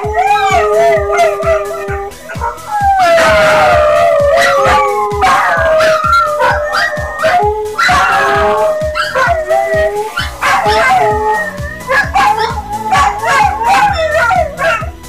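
Several dogs howling together, long wavering howls overlapping one another, loud, with many short sharp sounds in between.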